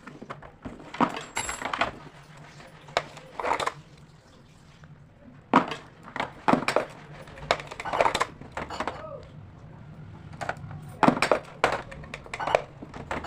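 Irregular handling noise from unpacking a mini electronic keyboard: scattered clicks, knocks, clatter and short rustling scrapes, a dozen or so spread through the stretch, over a faint steady low hum.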